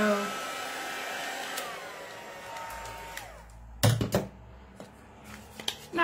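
Craft heat tool blowing hot air to dry ink on cardstock, switched off about a second and a half in, its motor whine falling in pitch as it winds down. Near four seconds in come a couple of sharp knocks and crinkles as the tool is set down and the paper handled.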